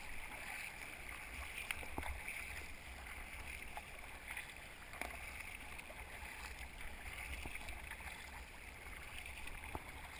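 Paddles dipping and splashing as an inflatable tandem kayak is paddled through choppy river water, with water rushing steadily along the hull and a few faint knocks scattered through.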